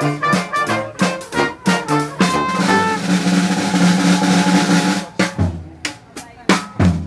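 Dixieland jazz band playing, with banjo, tuba, trumpet and saxophone over snare drum and cymbal. About two and a half seconds in, the band holds a long chord under a drum roll. Near the end comes a short drum break of separate hits.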